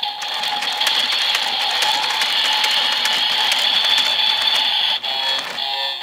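DX Evol Driver toy transformation belt playing an electronic sound effect through its small built-in speaker. It is a steady rattling buzz packed with rapid clicks, which breaks into short electronic tones about five seconds in.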